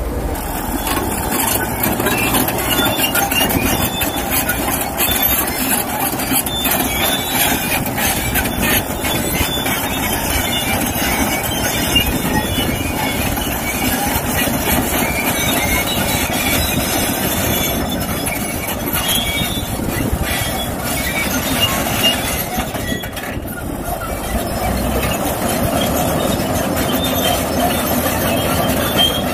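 Komatsu D375A crawler dozer driving across dirt: its diesel engine runs under a steady dense clatter from its steel tracks.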